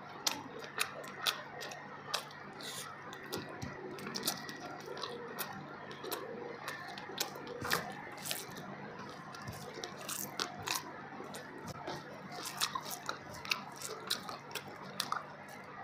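A person chewing a mouthful of fish biryani, with many quick wet mouth clicks and smacks, while fingers work through the rice.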